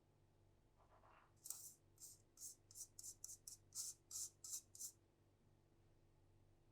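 Faint, short scratchy strokes, about a dozen in quick succession at three to four a second, from utensil work as flour and cocoa powder are mixed into the batter.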